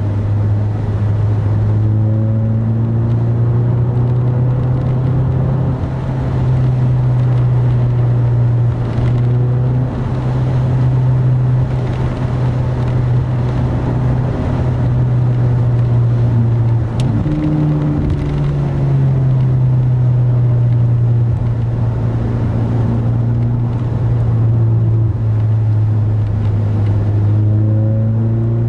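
A 2010 Mazda 3 with a Corksport dual aftermarket exhaust, heard from inside the cabin while cruising: a steady low exhaust drone over road noise. About two-thirds of the way through the pitch briefly rises, then settles back down.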